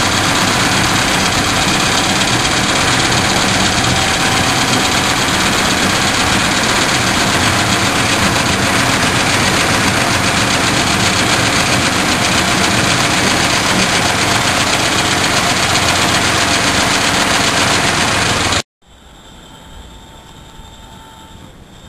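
The miniature locomotive's diesel engine runs under load, heard close up from the train while it moves, as a loud, steady mix of engine rumble and rushing noise. Near the end the sound cuts off abruptly to a much quieter, steady background.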